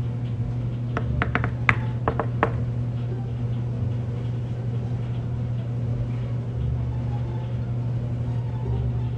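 Knuckles knocking on a dorm-room door: a quick series of about seven raps, starting about a second in and over within a second and a half, over a steady low hum.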